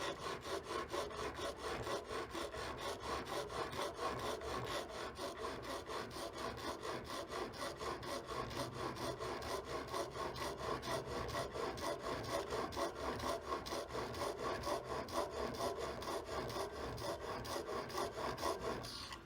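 Steel wood chisel held in a honing guide, scraped back and forth by hand across an abrasive sharpening surface in quick, even strokes, about four a second, stopping abruptly near the end.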